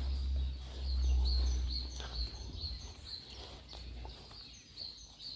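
A songbird calling over and over, a short high chirp about twice a second, with a low rumble under it for the first two seconds.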